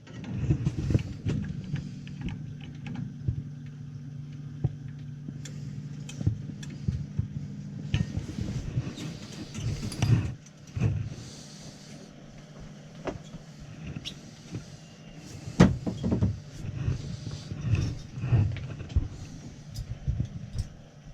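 Irregular clicks, knocks and clatter of hand work on metal parts, with a few louder knocks, over a steady low hum.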